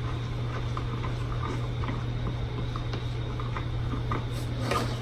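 Light clicks and taps of a utensil against a small bowl while stirring melted butter with garlic herbs, spaced about every half second, over a steady low hum.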